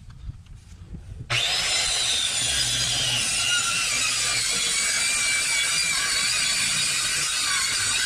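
Handheld power saw cutting through a wooden board: a loud, steady cutting noise with a motor whine that starts suddenly about a second in and stops abruptly near the end.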